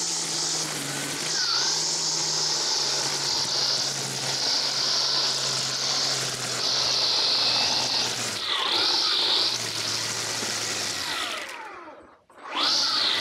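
Stihl FSA135R battery string trimmer running at speed and whipping through weeds: a steady motor whine with the hiss of the cutting line, its pitch sagging a little under load. Near the end it stops for a moment and spins back up as the trigger is squeezed again.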